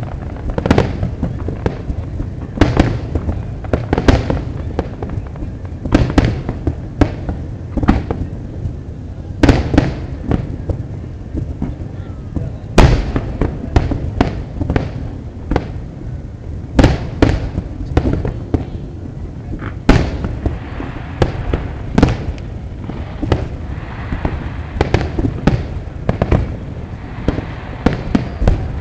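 Fireworks display: a dense, irregular run of shell bursts, bang after bang, sometimes several within a second. From about two-thirds through, a steady hiss joins the bangs.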